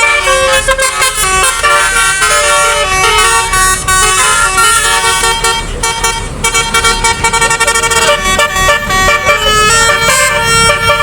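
Basuri telolet bus horn, a multi-tone musical horn, playing a quick melody. Several notes sound together and change every fraction of a second, with a short dip about six seconds in.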